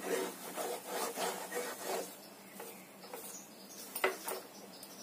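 Wooden spatula scraping and pushing a thick milk-powder kova dough around a nonstick pan in repeated strokes, louder in the first two seconds. The mixture has been cooked down to a soft lump, nearly done. A single sharp tap about four seconds in.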